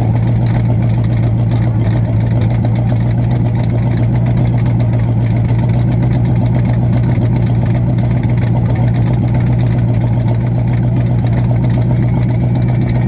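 Demolition derby car engine idling steadily and loudly through short open exhaust stacks that stick up through the hood, heard close up from the hood.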